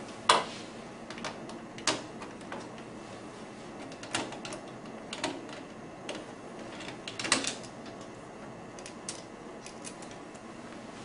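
Scattered clicks and knocks of a Phillips screwdriver and hands working on the steel side frame of an HP LaserJet 1320 printer as the gear-head screws are backed out. The sharpest knock comes about a third of a second in, with a short cluster about seven seconds in.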